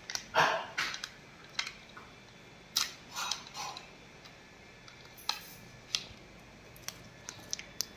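Kinder Joy egg's plastic cup and foil seal being handled and peeled open: scattered crinkles and small sharp clicks, with a few longer rustles in the first few seconds.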